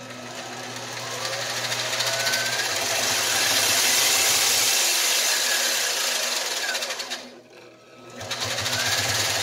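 Small benchtop metal lathe spinning up and running steadily, turning a stepper motor that works as a generator to light an LED lamp. About seven seconds in it winds down and stops, then starts up again near the end.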